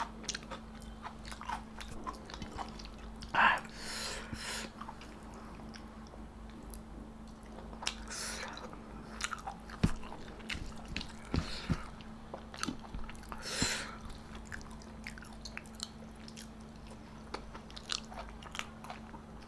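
Close-miked eating: chewing and biting with wet mouth clicks and occasional crunches, the loudest bites a few seconds in and again near the middle. A steady low hum lies underneath.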